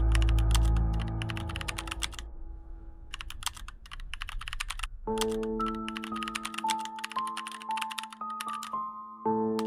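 Rapid keyboard-typing clicks in bursts with short pauses, over background music. The music starts as a low drone that fades out, then about five seconds in a sustained chord comes in with a simple high melody of single notes.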